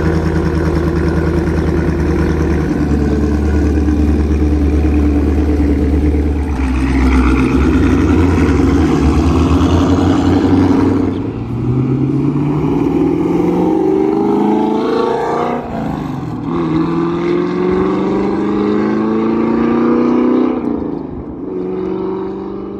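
Chevrolet Camaro SS 6.2-litre V8 running with a steady deep rumble, then accelerating with its pitch rising through the gears, dropping back at two upshifts in the second half before the sound fades a little near the end.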